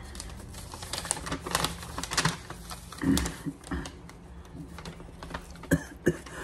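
Paper and plastic packaging being handled and opened: irregular crinkling, rustling and small clicks and taps, with a louder thump about three seconds in and two sharp clicks near the end.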